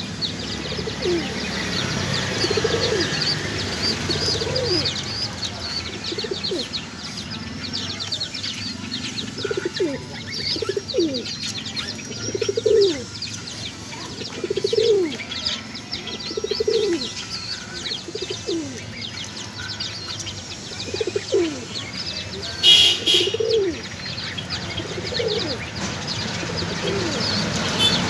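Jacobin pigeons cooing over and over, a short low coo every second or two, with small birds chirping high above. A single sharp knock sounds late on.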